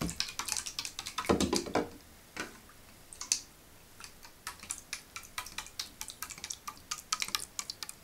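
Rubber-band-driven paddle blades of a small 3D-printed plastic boat slapping the bath water in rapid light ticks, with a splashy burst about a second in. The ticks grow sparser in the second half.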